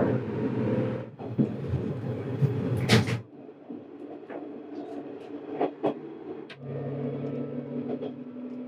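Interior running noise of a diesel railcar pulling out of a station, with a low hum. The sound drops sharply about three seconds in, after which sharp clicks and knocks come from the wheels running over the points, and a steady engine drone sets in near the end.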